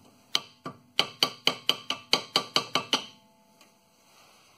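Light metal-on-metal tapping on the rear brake caliper to shake trapped air bubbles loose while the brake gravity bleeds. A few spaced taps, then a quick run of about a dozen, around five a second, each with a short ring, stopping about three seconds in.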